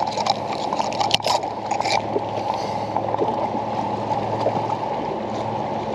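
A few sharp clicks and rattles in the first two seconds as a largemouth bass is clipped into a metal lip gripper and hung from a fish scale, over a steady low noise of wind and water around the boat.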